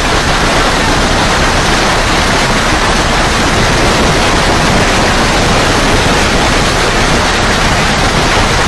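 Loud, steady roar of strong storm wind, with the wind buffeting the microphone and making the low end flutter.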